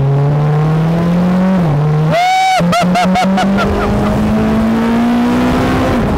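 BAC Mono's four-cylinder engine, mounted right behind the open cockpit, accelerating hard with its note climbing. A quick upshift through the sequential gearbox comes about a second and a half in, the note climbs again, and another upshift comes near the end. Wind rushes over the open cockpit underneath.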